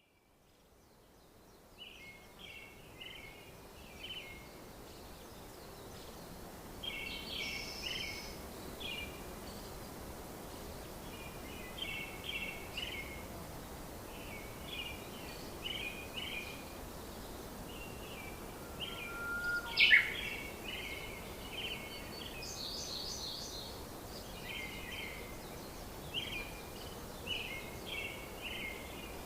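Songbirds singing over a steady outdoor hiss that fades in from silence. Short chirping phrases come every second or two, with one louder, sharp call sweeping upward about twenty seconds in.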